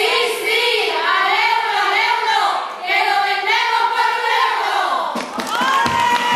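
Women's chirigota group singing a carnival song together. The singing ends about five seconds in, and audience applause breaks out near the end.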